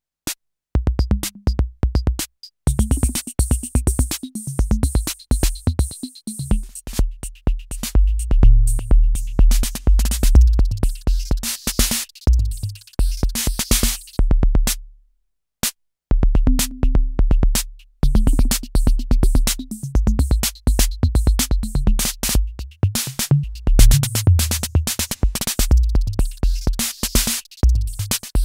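Roland TR-6S drum machine playing an electronic beat: heavy low kick thuds under rapid, dense clicking percussion. The beat breaks off for about a second midway, then starts again.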